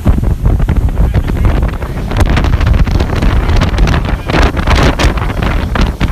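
Heavy wind buffeting the microphone aboard a speedboat running at high speed over 50 knots, over a loud low rumble from the boat, in irregular gusts.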